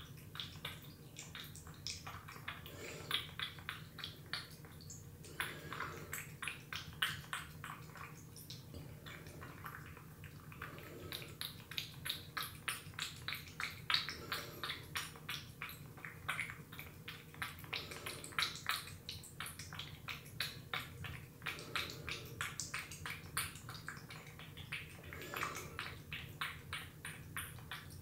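A cat lapping and licking up wet food thinned with water into a slushy paste: quick wet licking clicks in runs of several seconds, with short pauses between them.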